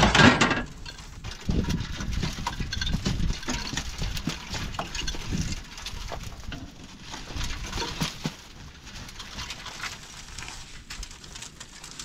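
Rock trap of a John Deere 9500 combine being emptied by hand: a loud knock at the start, then irregular rattling and rustling as packed corn cobs and chaff are pulled out and fall to the ground, thinning out toward the end.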